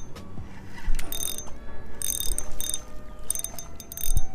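Fishing reel clicking in several short ratcheting bursts.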